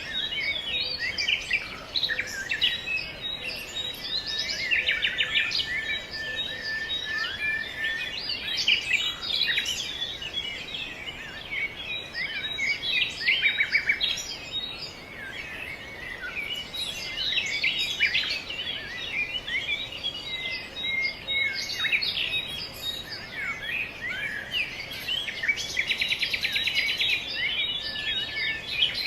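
Many small birds chirping and twittering at once, their calls overlapping without a break, with a couple of rapid trills.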